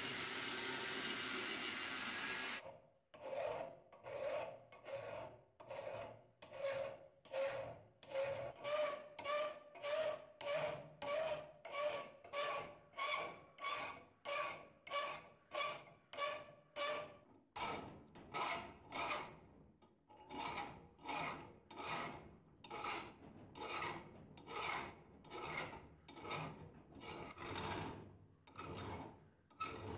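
An angle grinder runs against the steel of a pruning-shear half and stops about two and a half seconds in. Then a flat hand file is pushed across the shear half clamped in a bench vise, about one and a half strokes a second. Through the first half each stroke draws a ringing tone from the steel, and after that the strokes go on without the ring.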